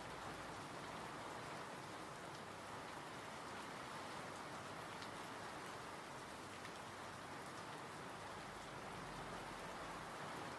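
Steady rain falling: an even, soft hiss with faint scattered ticks of single drops.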